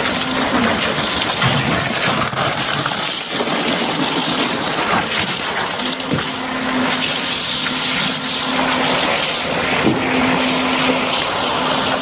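Concrete gushing from a concrete pump's boom hose into ICF pool wall forms: a steady wet wash of noise. A hum from the pump comes and goes, and there are a couple of sharp knocks, about six seconds in and near ten seconds.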